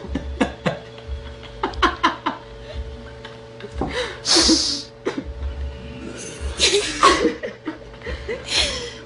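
People laughing and snickering in short bursts, with a few breathy hisses in between, the clearest about four seconds in.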